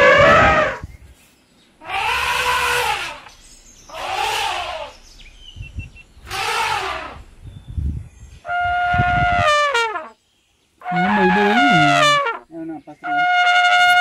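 Asian elephants trumpeting in a series of about seven loud calls roughly two seconds apart. The first four rise and fall in pitch. The last three are longer and held at a steady high pitch.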